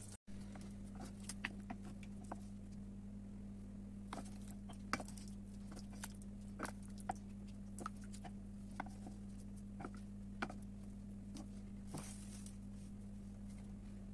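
Scattered soft clicks and light taps of a wooden spoon against a pot while cooked stew is spooned out onto a plate, over a steady low hum.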